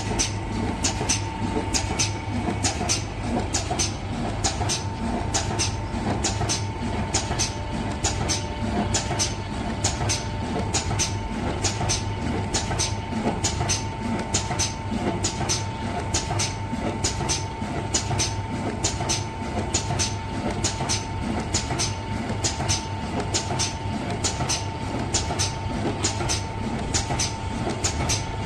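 Single-blade paper tube cutting machine running, with a low hum, a steady whine and a sharp regular click about twice a second.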